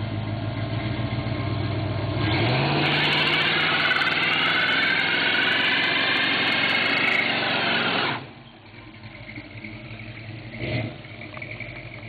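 Ford Bronco doing a burnout: the engine revs up about two seconds in and the spinning rear tyre screeches loudly for several seconds. The tyre noise and revving cut off sharply about eight seconds in, and the engine runs on more quietly.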